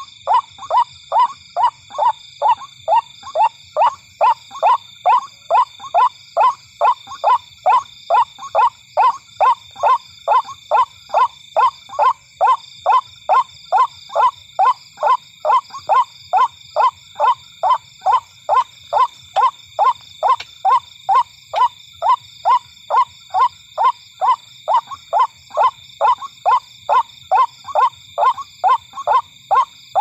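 White-breasted waterhen (ruak-ruak) calling, a short harsh note repeated evenly about twice a second without a break. Behind it runs a steady high-pitched drone of several tones.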